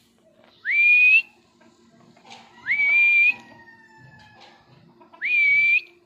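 Indian ringneck parakeet giving three loud calls, about two seconds apart. Each call sweeps quickly up in pitch and then holds for about half a second.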